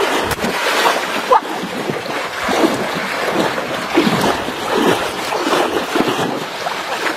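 Muddy floodwater splashing and churning as a domestic goose paddles and flaps its wings through it and a person wades after it, with a run of short swishing splashes.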